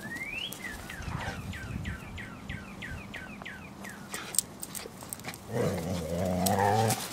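A puppy gives a quick run of short high squealing yelps, about three or four a second, as an adult dog pins and corrects it. Then a dog growls for about a second and a half near the end, the loudest sound.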